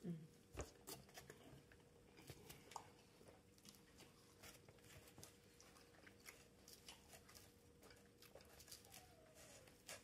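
Faint chewing of crisp salad close to the microphone: a steady string of soft crunches and small mouth clicks, with one louder click near the end.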